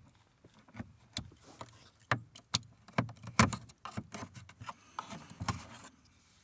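Irregular clicks, taps and knocks of tools against plastic door trim as the inner door handle area of a car door is worked apart by hand.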